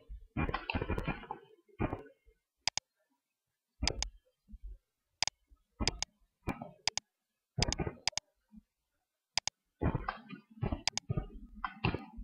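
Computer mouse button clicking: about ten single sharp clicks at irregular spacing, roughly one a second, with softer rustling noises between them.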